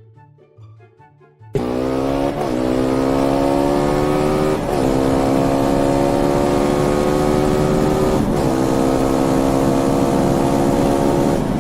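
Car engine revving hard and accelerating through the gears, starting suddenly about a second and a half in. The pitch climbs steadily and drops back three times as it shifts up.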